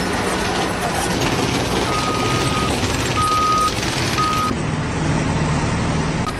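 Heavy vehicle or machinery running loudly, with a reversing alarm beeping three times, about a second apart. Near the end the sound changes to a steady low hum.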